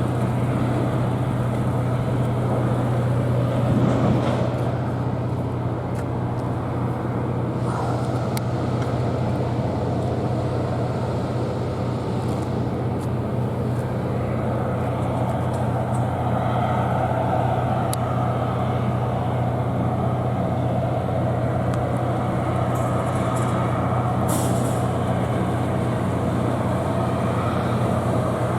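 Steady low engine drone that holds unchanged throughout, with a few faint clicks over it.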